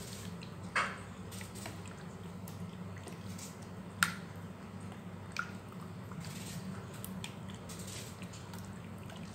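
A hand squishing and turning bone-in chicken pieces through a thick yogurt marinade in a bowl: soft wet squelching with a few sharper clicks, about a second in, four seconds in and five and a half seconds in. A faint steady low hum runs underneath.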